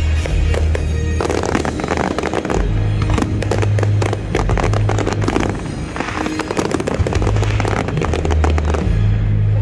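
Aerial fireworks display: shells bursting overhead in dense crackling volleys over a continuous low booming rumble.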